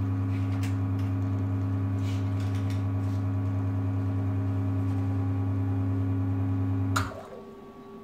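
Sanremo Opera espresso machine's gear pump humming steadily while it drives a 4-bar extraction, then cutting off about seven seconds in with a sharp click as the shot ends.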